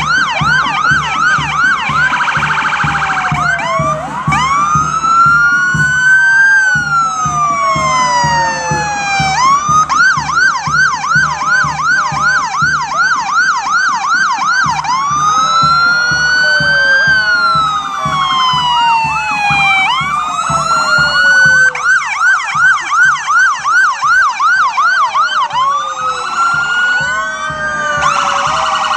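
Several police car and fire truck sirens sounding at once, overlapping: slow wails rising and falling alongside rapid yelps.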